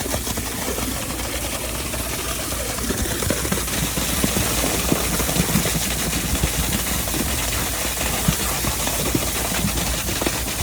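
An engine running steadily, with many small irregular rattling knocks over it.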